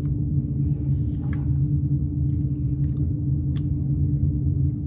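Steady low machine hum, with a few faint light clicks as the red/green dot sight's button is pressed and the carbine is raised into the shoulder.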